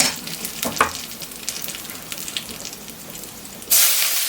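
Hot oil with whole spices and curry leaves sizzling in a tawa, with two sharp knocks in the first second. Near the end the sizzling jumps to a sudden loud hiss as chopped onions go into the hot oil.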